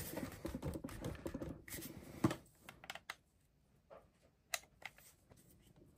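Small plastic clicks and taps of a Makita GA5030R angle grinder's housing being handled after reassembly, many in the first two seconds, then a few isolated clicks with near silence between them.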